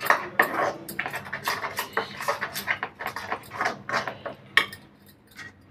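Hand mixing gram-flour batter in a steel bowl: quick, irregular clicks and taps of fingers and glass bangles against the bowl and each other, dying away about a second before the end.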